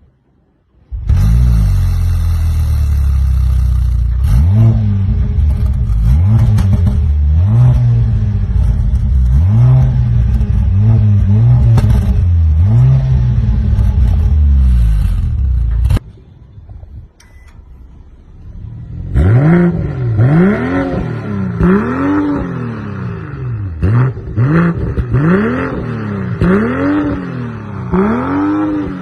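Mercedes-AMG C43 engine and exhaust blipped repeatedly, one rev about every second and a bit. About halfway through the sound cuts to a second car, a BMW M340i's turbocharged straight-six, blipped in the same rhythm with a brighter, rasping note.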